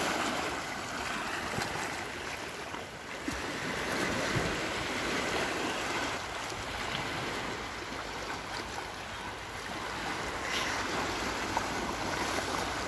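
Steady wash of small sea waves at the shoreline, mixed with wind on the microphone.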